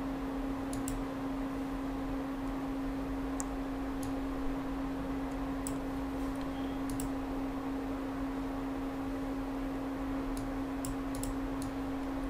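A steady low electrical hum with faint hiss, with a few scattered faint computer clicks as the SAP screens are navigated.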